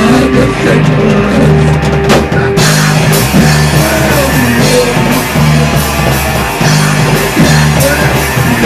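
Rock band playing live: drum kit, electric bass and electric guitar together at full volume, the high end growing brighter about two and a half seconds in.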